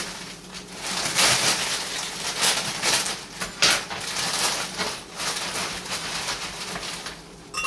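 Plastic bag of ice cubes crinkling and rustling while ice is shaken out of it into a blender jar, with irregular clatters of ice.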